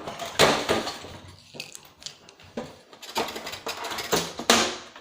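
A tool prying at the plastic casing of an old CRT TV and DVD combo: irregular clicks, knocks and scrapes, loudest about half a second in and again in a cluster near the end.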